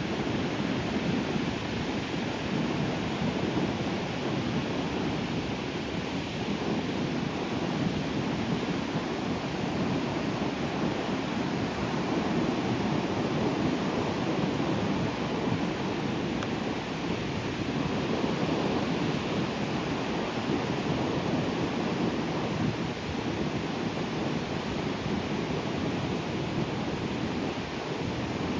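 Sea waves breaking on the shore in a continuous wash of surf that swells and eases gently.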